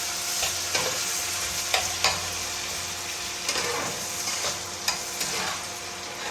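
Chopped onion, green chili and garlic frying in hot mustard oil in a frying pan, a steady sizzle, while being stirred, with a few sharp scrapes and taps of the utensil against the pan.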